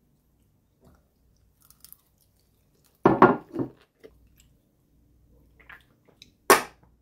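Crunching bites into a fried rice-paper spring roll, loudest about three seconds in, followed by chewing. One sharp, loud noise near the end.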